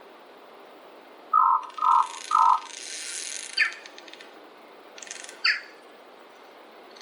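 Birds calling in a forest: three short, loud calls in quick succession, then a rustling noise and two brief downward-slurred calls. A steady hiss of wind or water runs underneath.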